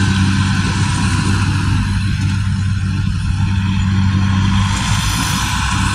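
Kubota DC-70G Plus combine harvester's diesel engine running steadily under load, with the clatter of the harvesting machinery over a low, even drone.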